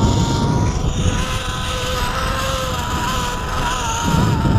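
Zip-line trolley pulleys running along the steel cable, a steady whine with two pitches that waver near the end, over a low rush of wind buffeting the camera microphone.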